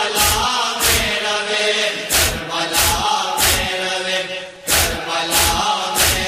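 Noha, a Shia lamentation chant, sung by voices in a sustained, wailing melody. It is kept in time by a sharp slap-like beat about every two-thirds of a second.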